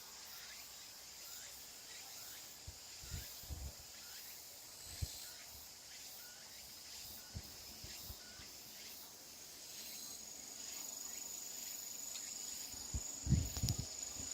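Insects chirping in a steady high-pitched drone, with a short rising chirp repeated over and over. A few soft low thumps, several of them near the end.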